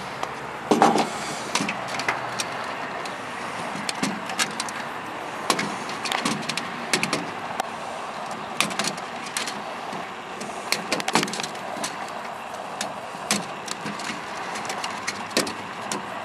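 Wire cutters snipping through the wiring of an old radio receiver, heard as scattered sharp clicks and snips at irregular intervals, with light clinks of metal parts being handled.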